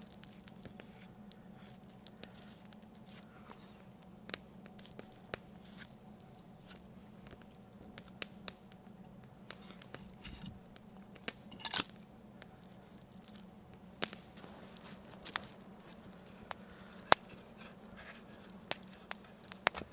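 Scattered small clicks and crackles at irregular intervals over a faint steady hum, with a short crinkling rustle about twelve seconds in.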